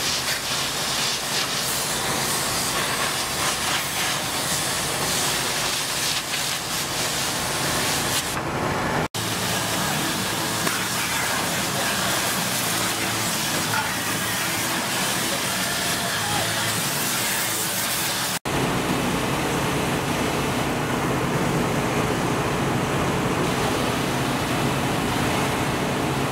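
High-pressure washer jet spraying water onto equipment, a loud steady hiss, broken off for an instant twice.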